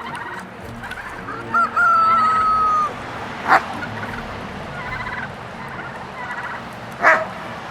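Farmyard poultry calling: a rooster crows once, a single long held call about a second and a half in, geese give two short loud honks, and the rest of the flock chatters more softly in between.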